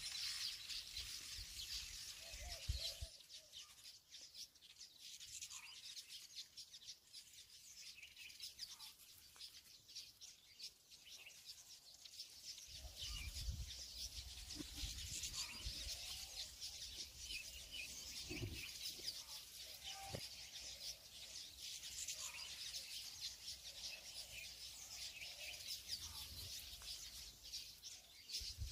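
Faint birds chirping steadily in the background, with soft, low handling thuds from hands kneading dough in a glass bowl.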